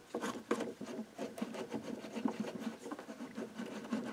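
Screwdriver turning screws out of the bottom of an old tape recorder's case: a run of small irregular clicks and scraping.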